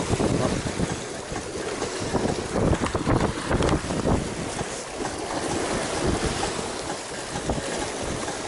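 Wind buffeting the microphone over water rushing along the hull of a sailing yacht under way, the noise swelling and easing unevenly.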